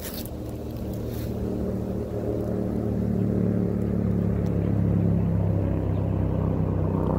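Wind buffeting the camera's microphone: a steady low rumble that builds in loudness over the first few seconds.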